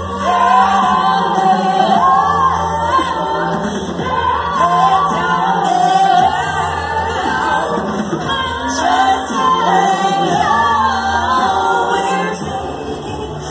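Female a cappella group singing in harmony into handheld microphones, amplified through a small speaker, with wavering melody lines over a held low bass part.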